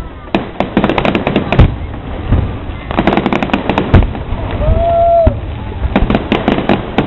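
Fireworks display: aerial shells bursting with sharp bangs and rapid crackling in volleys. There are dense flurries in the first two seconds, around three to four seconds in, and again near the end.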